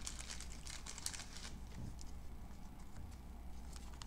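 Soft crinkling and rustling of a thin plastic card sleeve being handled as a trading card is slid into it, busiest in the first second and a half and again near the end.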